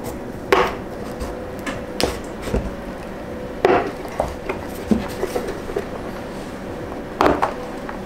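Plastic pry tools working around the edge of a heated Mitsubishi 3000GT tail light lens, giving sharp plastic clicks and snaps, the loudest about half a second in, near the middle and near the end, as the lens clips and softened glue let go.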